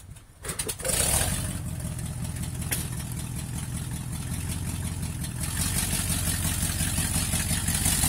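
1965 Ford F100's tired 390 Marauder V8 fires up about a second in and then runs steadily with a rapid, even exhaust pulse. The engine has extremely bad exhaust leaks.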